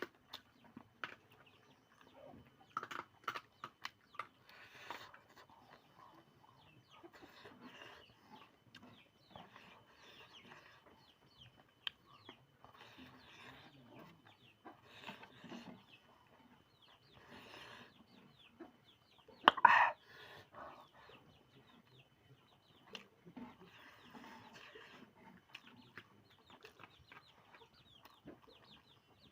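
Chickens clucking on and off at a fairly low level, with one louder call about twenty seconds in, over scattered light clicks.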